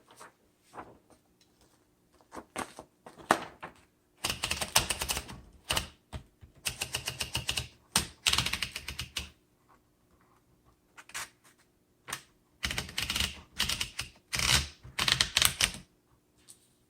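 1947 Underwood Universal portable manual typewriter being typed on: a few single keystrokes, then three runs of rapid type-bar strikes separated by short pauses.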